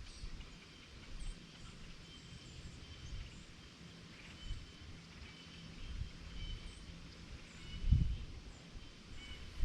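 Small birds chirping faintly and repeatedly, over a low rumble of wind buffeting the microphone that swells in a gust near the end.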